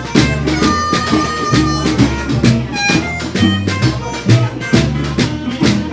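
Live blues played by a small acoustic band: upright bass and acoustic guitar over a steady beat struck on a large drum, with held harmonica notes.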